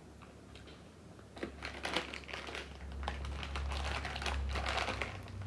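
Ice cream wrapper crinkling as it is handled. A few scattered clicks come about a second and a half in, then the crinkling grows denser.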